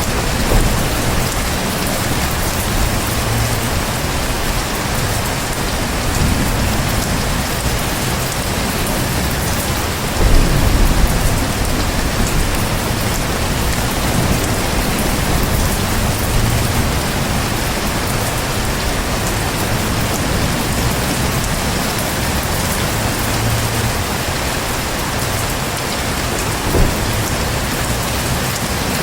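Heavy rain falling steadily in a dense, even hiss, with a short low rumble of thunder about ten seconds in.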